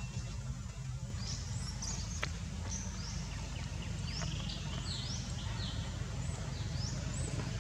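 Birds chirping in quick, short high-pitched calls that sweep up and down, over a steady low rumble. A single sharp click comes a little past two seconds in.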